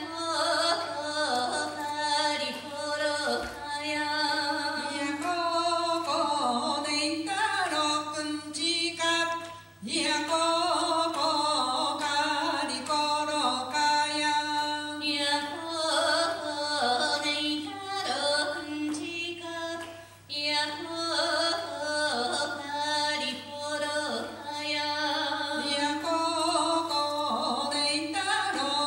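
Women's voices singing a traditional Ainu chanted song, in repeating phrases, with brief breaks about ten and twenty seconds in.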